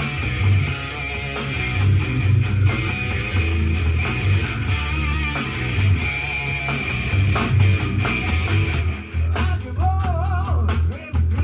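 Drum kit played along with a recorded rock song, with electric guitar, bass and drums; a singing voice comes in near the end.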